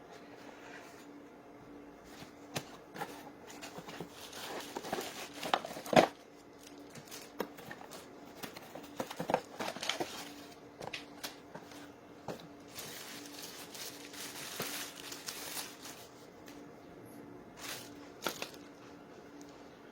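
Crinkling and rustling of something being handled, with scattered clicks and one sharp knock about six seconds in, over a faint steady hum.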